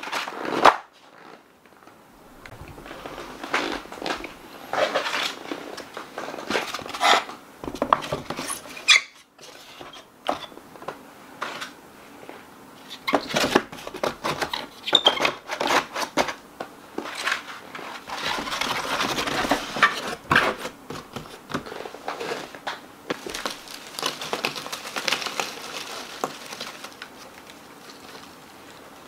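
Paper-pulp egg trays being handled and laid into a plastic tub: irregular rustling and scraping with light knocks, and longer spells of dense rustling in the second half.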